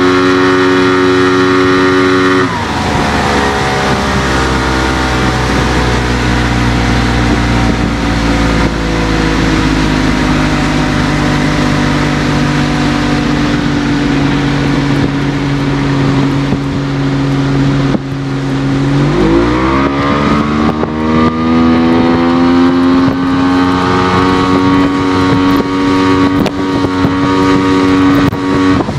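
Yamaha 70 hp two-stroke outboard running at high revs, pushing the boat at speed. About two seconds in the revs drop sharply and it runs slower for a long stretch; around twenty seconds in it climbs back up to high revs and holds there. Rushing wind and water lie under the engine.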